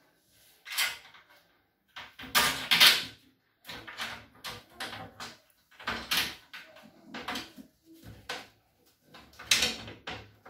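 Oven door's glass panel and metal frame being handled, giving a string of irregular knocks, clacks and short scrapes.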